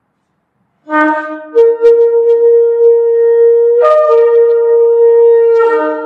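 A ram's-horn shofar blown in one long blast: it starts on a low note about a second in, jumps up to a higher note held for several seconds with a brief crack around four seconds in, then falls back to the low note near the end.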